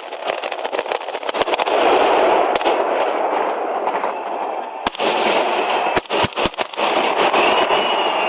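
Aerial fireworks going off: dense crackling and rapid volleys of small bangs, with a handful of sharp, loud reports about five to six and a half seconds in.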